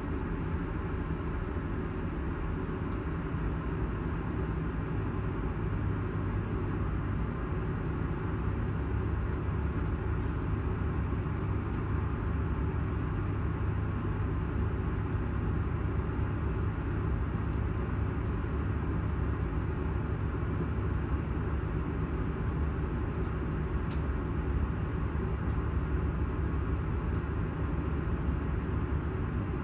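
Moving passenger train heard from inside the carriage: a steady low rumble and rolling noise. It grows a little louder about six seconds in.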